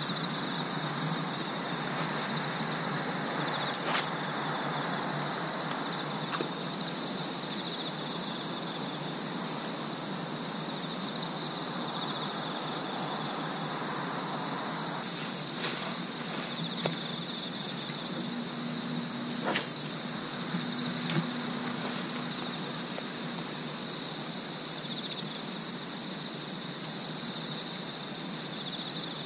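Night insect chorus: steady high-pitched trilling in several layers. A few sharp clicks and taps stand out, around four seconds in and again through the middle.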